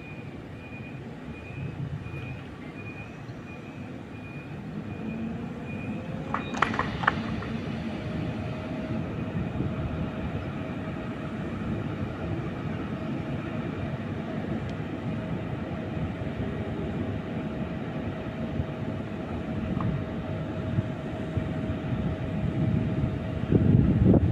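Train approaching: rumbling that grows slowly louder, with a steady whine from about seven seconds in. A few sharp clicks come just before the whine starts.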